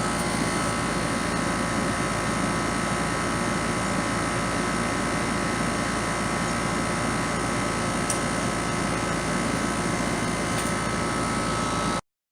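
Outdoor air-conditioner condenser unit running, its fan and compressor giving a steady hum and drone that cuts off suddenly near the end.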